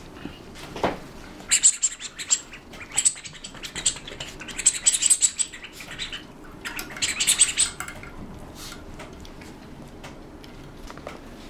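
Rubber squeaky toy squeaking in quick, high-pitched bursts as a puppy bites and tugs at it: four clusters of squeaks, dying away about eight seconds in.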